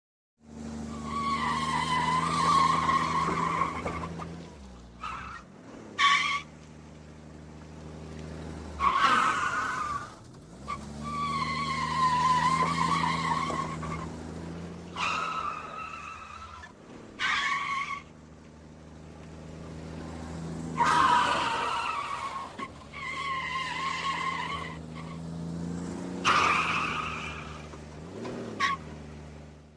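Car tyres skidding and squealing again and again: several long squeals of two to four seconds with a wavering pitch, and short sharp chirps between them, over a steady low engine hum.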